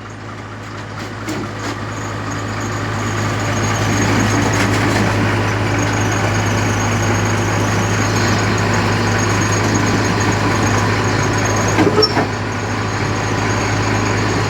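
Heavy diesel engine running. It grows louder over the first few seconds and then holds steady, with a couple of brief knocks about twelve seconds in.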